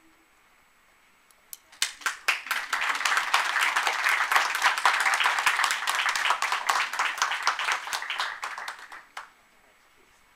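Audience applauding: many hands clapping start about two seconds in, build quickly, hold for about seven seconds and die away near the end.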